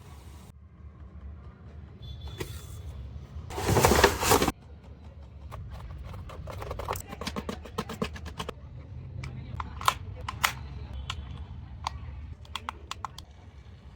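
Toy packaging being handled during an unboxing: a loud rustle lasting about a second, then scattered clicks and taps as the toy and box are handled, over a low steady hum.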